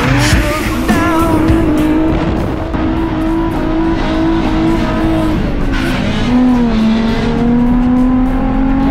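Nissan 350Z drift car heard from inside the cabin, its engine held at steady high revs through a slide with tyre squeal. The engine note drops a little about six seconds in, then holds again.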